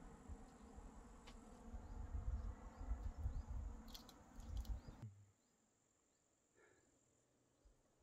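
Insects chirring steadily in a summer meadow: a thin high tone with faint repeating chirps, under a low rumble. About five seconds in, everything cuts off abruptly to near silence.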